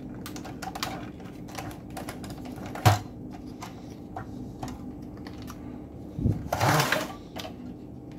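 Irregular light clicks and taps of a circuit board and its plastic housing being handled as the board is worked out of a variable-frequency drive's case. There is a sharper knock about three seconds in and a brief scraping rustle near seven seconds.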